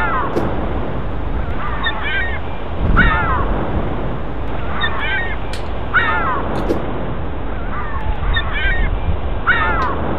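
Gulls calling: repeated short cries that bend downward in pitch, one every second or two and some in quick pairs, over a steady low rumble of wind.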